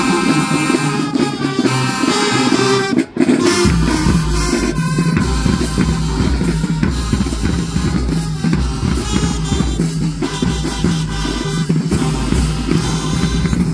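Loud music with a drum-kit beat of snare and bass drum. It breaks off for an instant about three seconds in, then comes back with a heavy deep bass line, and it stops abruptly at the end.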